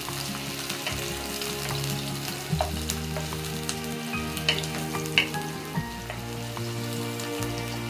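Chopped onions sizzling in hot oil in a wok-style kadai, with a wooden spatula scraping and clicking against the pan now and then as they are stirred to brown.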